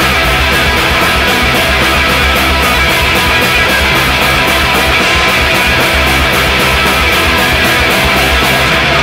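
Live rock band playing loud: electric guitars, bass guitar and drums, with the cymbals keeping a fast, even beat.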